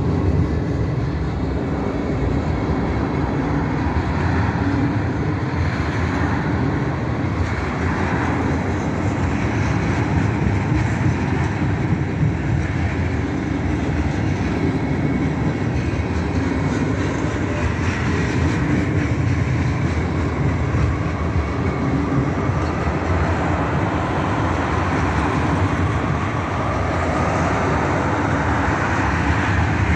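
Alaska Railroad freight train of tank cars, flatcars and hopper cars rolling steadily past, its wheels running on the rails in a continuous even rumble.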